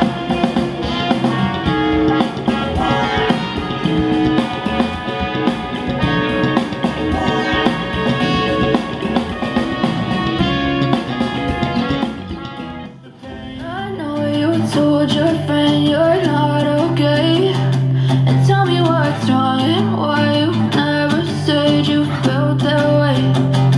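Music with singing, guitar and drums played back through a pair of bookshelf monitor speakers driven by a DIY TDA7265 stereo amplifier, as a sound test. About thirteen seconds in the level dips briefly and a different passage with a heavier bass line begins.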